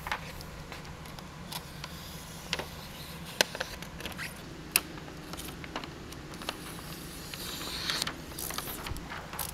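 A sheet of window tint film being handled and lifted off a truck's side window: scattered sharp ticks and crackles of the plastic film, with a rustle near the end. A low steady hum runs underneath.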